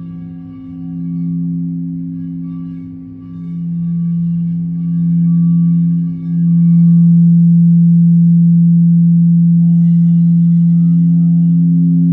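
A sustained ringing drone of two low tones with fainter higher overtones, swelling and dipping a few times, then swelling strongly about six seconds in and slowly fading.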